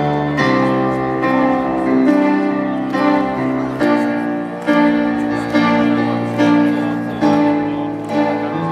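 Amplified live rock-band music from a festival stage PA, heard from within the crowd: a slow passage of held keyboard chords that change about every second.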